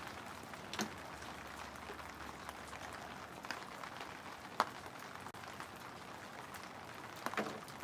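Steady hiss of light rain, with a few sharp clicks or taps scattered through it.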